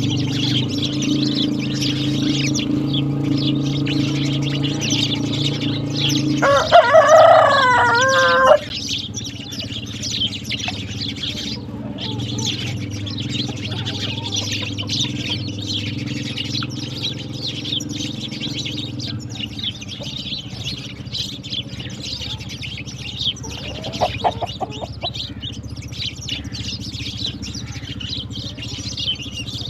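A flock of sparrows chirping continuously. About seven seconds in, a rooster crows once for about two seconds, the loudest sound here. A steady low hum lies under the first six seconds or so.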